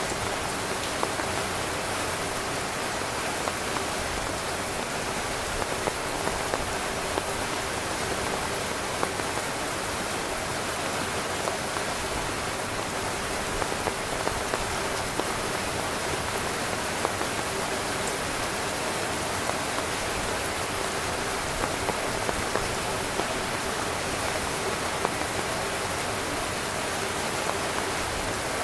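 Heavy rain drumming steadily on a tent, a dense hiss with many individual drops ticking throughout.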